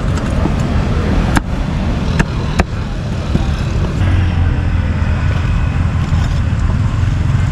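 Grilled pork being chopped on a board, a few sharp chops in the first three seconds, over steady street traffic; a vehicle engine's low rumble swells up about four seconds in.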